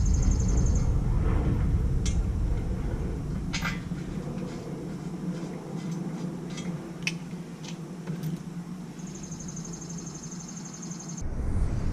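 Scattered light clicks and crackles of hands working at wrapped parts, over a low rumble that fades out after about three seconds. A high, fast-pulsing buzz sounds near the start and again near the end.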